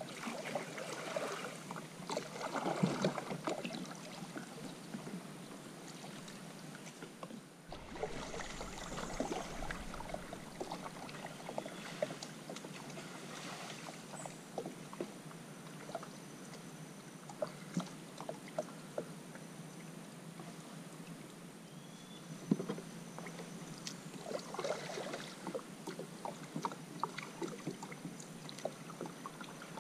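Hunter 285 fishing kayak being paddled: paddle blades splash and drip, with many scattered clicks and knocks.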